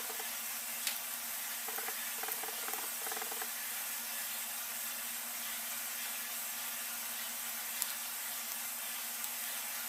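Small screwdriver driving tiny screws into a cell phone's plastic housing: a few faint short squeaks in the first few seconds and two faint clicks, over a steady hiss and low hum.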